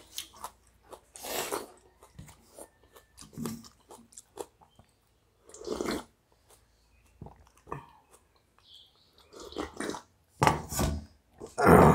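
Mouth sounds of eating water-soaked rice by hand: chewing, with several loud slurps of the rice water drunk straight from a steel plate, the loudest near the end.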